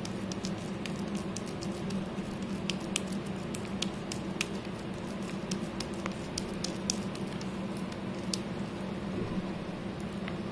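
Wet slate pencil paste squelching as it is squeezed and kneaded by hand in a bowl, with many small sharp wet clicks and crackles at an uneven pace, over a steady low hum.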